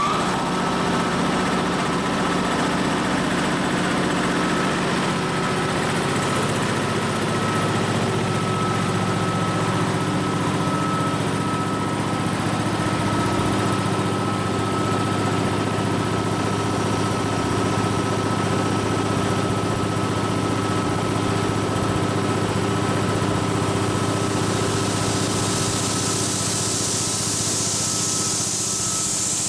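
Ingersoll Rand H15T4 high-pressure breathing-air compressor running steadily at speed, a steady low hum with a high whine, compressing air to fill a scuba bottle. A high hiss grows louder in the last few seconds.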